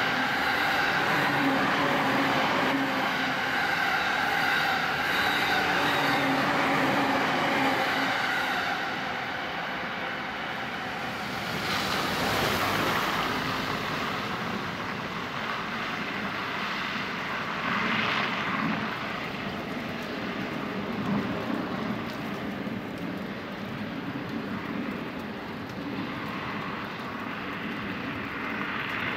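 Commuter electric train passing at speed. For the first eight seconds it gives a loud, steady run of noise with several held tones. After that it drops to a quieter rumble, which swells briefly about twelve and again about eighteen seconds in.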